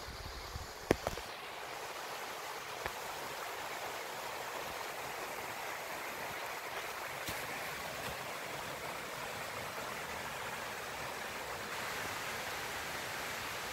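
Steady rushing outdoor noise, even throughout, with one sharp click about a second in.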